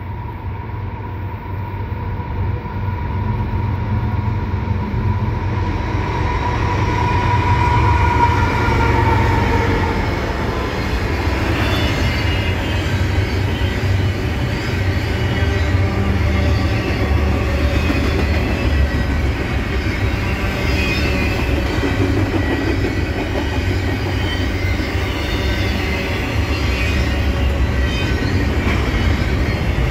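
Diesel-hauled double-stack container freight train approaching and passing: the locomotives' rumble and a high whine grow louder, the whine dropping in pitch about nine seconds in as they go by. The container cars then roll past with a steady rumble, wheel clatter and faint wheel squeals.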